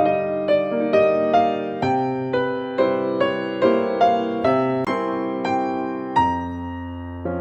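Background piano music: a gentle melody of single notes played at about two a second over sustained lower notes.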